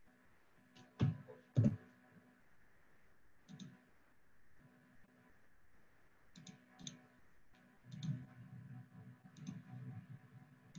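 Quiet clicking at a computer: scattered clicks, several in quick pairs, the loudest pair about a second in, over a faint steady hum.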